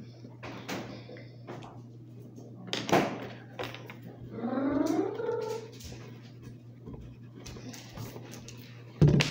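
Small tapping and scraping of markers on paper and the tabletop over a steady low hum, with a sharp click about three seconds in and a short rising vocal sound around the middle. A loud thump comes near the end.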